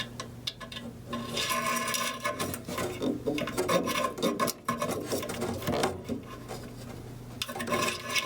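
Metal scraping and rasping in irregular strokes as a wire or small tool is worked through a rust-clogged furnace pressure-switch port to clear it. A low steady hum sits underneath.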